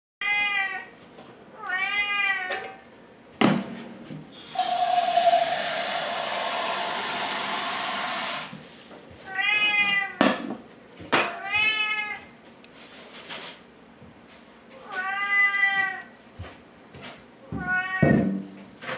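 Domestic cats meowing again and again, about six drawn-out meows, with a few sharp thuds. A steady rushing noise lasts about four seconds in the middle.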